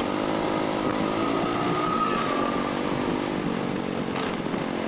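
Motor scooter engine running steadily while riding along at cruising speed.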